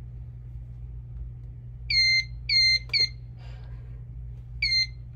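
Handheld metal detector wand beeping four times, each beep dipping slightly in pitch as it starts: three short beeps close together about two seconds in, then one more near the end. The beeping is the wand's alert that it has picked up metal on the person being scanned. A sharp click sounds between the beeps.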